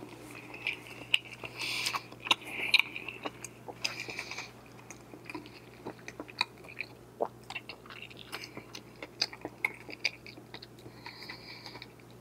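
A person chewing a mouthful of chicken thigh with bacon in a creamy sauce: irregular mouth clicks and smacks, busier in the first few seconds, over a faint steady low hum.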